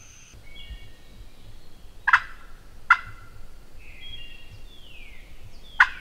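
Eastern wild turkey gobbler gobbling three times in short, loud bursts, the third a few seconds after the first two, while songbirds sing faint whistled notes and a falling slur.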